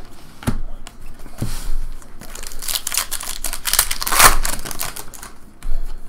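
A stack of Bowman baseball cards being shuffled and flicked through by hand. A couple of single taps come first, then a run of rapid clicking and sliding of card edges from about two seconds in, loudest around four seconds.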